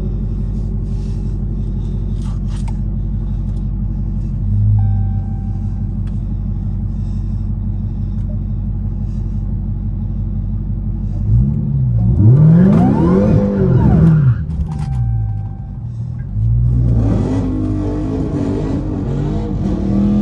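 Supercharged 6.2-litre HEMI V8 of a Dodge Charger Hellcat idling steadily, then revved up and down several times about twelve seconds in, and once more a few seconds later.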